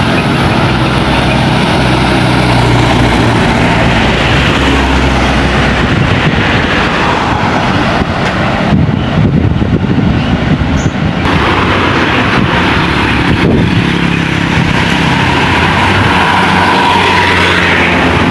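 Heavy road traffic of buses and trucks passing close by, engines running steadily under loud tyre and road noise, with no horn sounding.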